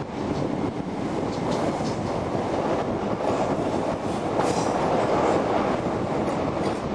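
Passenger train of Mk3 coaches running on the rails, a steady rumbling rolling noise of wheels on track heard from an open carriage window.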